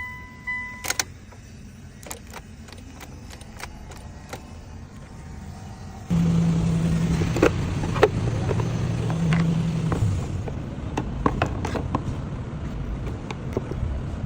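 A car's starting circuit is bypassed with a single jumper wire: a couple of short beeps and light clicks come first, then about six seconds in the car engine suddenly starts and runs steadily, with scattered ticks over it.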